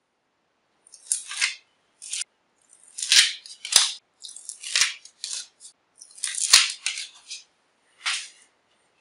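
Backing paper being peeled off pieces of double-sided tape on an MDF board: a string of short, crisp paper rustles and tears, with a few sharp clicks among them.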